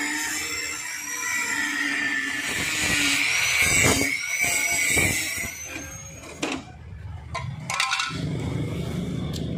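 Electric angle grinder grinding the rusted sheet-steel floor panel of an old scooter, a steady high whine with grinding noise. About six seconds in it stops, and scrapes and knocks of metal being worked with a hand tool follow.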